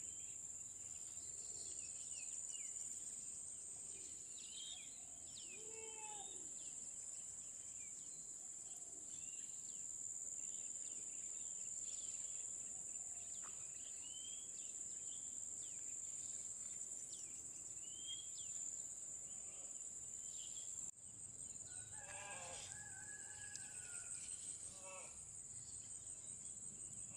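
Outdoor wildlife ambience: a steady high insect drone with scattered short bird chirps and whistles. After a sudden cut about 21 s in, louder, harsher bird calls sound for a few seconds.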